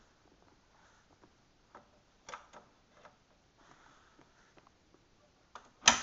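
Scattered light clicks and taps from hands handling a Discomatic portable 45 rpm jukebox. Near the end a sharp, loud click as a control on its front panel is worked.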